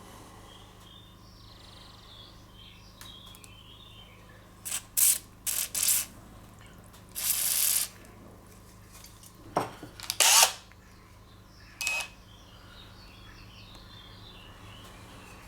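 Aerosol can of WD-40 hissing in several short squirts, one of them about half a second long, sprayed into the anvil housing of a cordless impact driver to loosen a seized bit.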